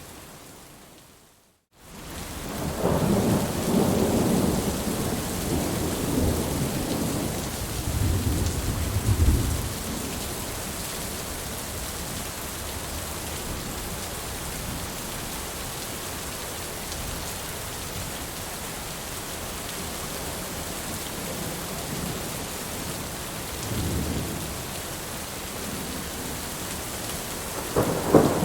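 Steady rain pouring down, with low rolls of thunder rumbling several times, longest and loudest in the first third. About a second in, the sound dips to near silence and swells back.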